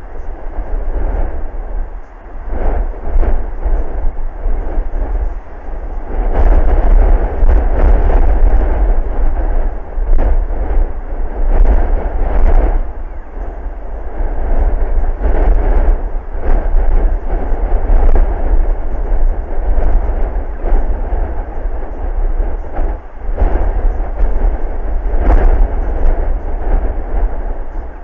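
Strong wind buffeting the microphone: a loud, deep rumble that surges and eases in gusts every few seconds.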